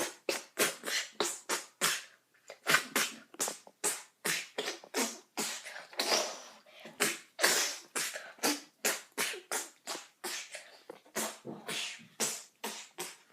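A boy making percussive sound effects with his mouth: a fast run of short, sharp, breathy bursts, about two to three a second, each cutting off quickly.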